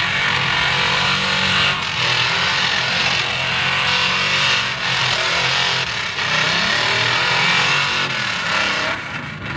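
A mud-bogging pickup's engine running hard at high revs as the truck churns through deep mud on big mud tires. The sound changes abruptly a few times.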